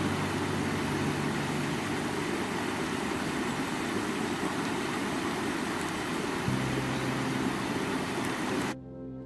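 River water rushing steadily over rocks, with a low held hum underneath near the start and again near the end. The water sound cuts off suddenly shortly before the end, leaving soft ambient music.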